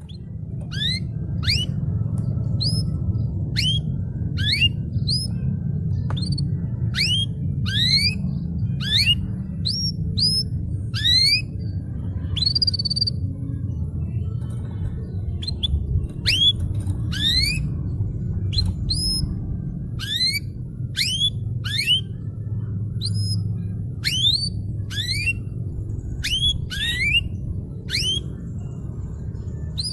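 Domestic canary singing: a string of quick, rising whistled notes, about one or two a second, with a short pause about halfway through, over a steady low background rumble.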